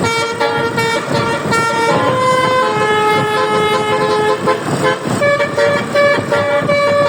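Multi-tone telolet (basuri-type) air horn on a Dewi Sri bus playing a tune over the noise of the road. It starts with quick short notes, holds longer notes through the middle, and repeats a short pulsing phrase near the end.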